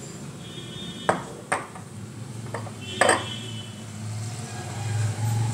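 A metal spoon clinking against metal cookware four times while ghee is put into a frying pan, the loudest knock about three seconds in; two of the knocks leave a short, high ring.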